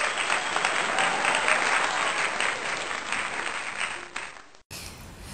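Crowd applause, dense and continuous, laid in as an edited-in sound effect; it cuts off abruptly near the end.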